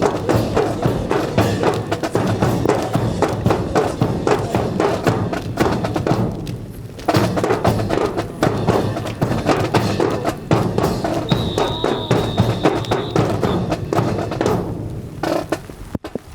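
A drill team's rifle drill played as percussion: fast, rhythmic clacks and slaps of drill rifles with thuds of rifle butts and boots, in unison. It breaks off briefly about six and a half seconds in, resumes, and dies away near the end.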